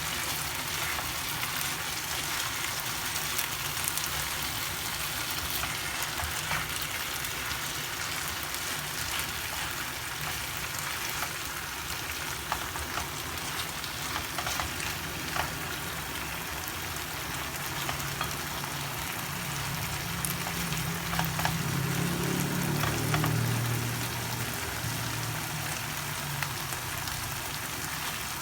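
Food frying in hot oil in a pan: a steady sizzle with small crackles and pops. In the second half a low hum swells for a few seconds, then fades.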